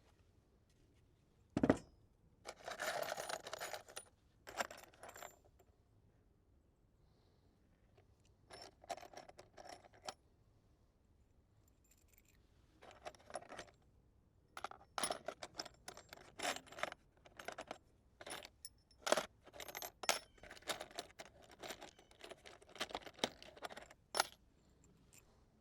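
Loose metal screws being rummaged through, clinking and rattling in scattered bursts, with one sharp knock about two seconds in.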